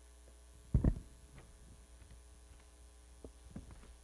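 Steady low electrical hum, with a short handling thump at the lectern about a second in and a few faint light clicks near the end.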